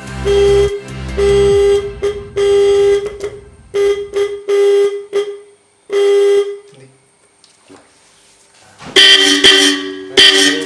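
Electric car horn sounding in about seven short beeps on one steady note, then, after a pause, louder honks with two notes sounding together near the end.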